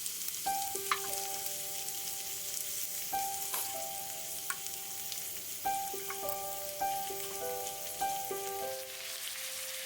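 Food sizzling steadily in hot fat on a hot pan, with a light melody of plucked notes over it.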